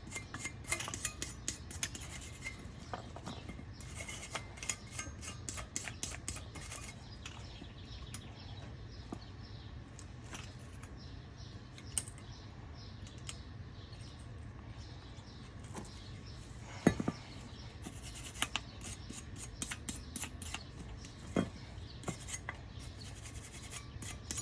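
Hand wire brush scrubbing and scraping the metal pad clips on a brake caliper bracket, in rapid, gritty strokes that pause in the middle and pick up again, with a couple of sharper metal knocks. The clips are being scuffed clean to be reused.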